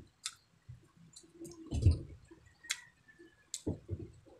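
Close-miked eating sounds: wet lip smacks and sharp mouth clicks while chewing, scattered through, with a louder low thump about two seconds in.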